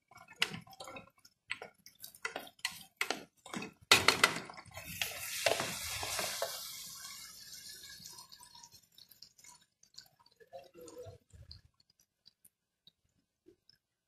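A spoon knocking and scraping against a cooking pan as okra and meat are stirred together. About four seconds in, a louder clatter is followed by a hiss of sizzling that fades over a few seconds, leaving only a few faint clicks.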